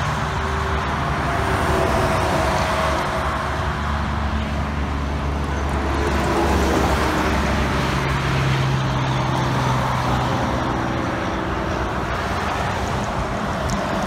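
Diesel semi-trucks running past on a highway under steady tyre and traffic noise, the engines heard as a low steady drone that strengthens for a few seconds past the middle.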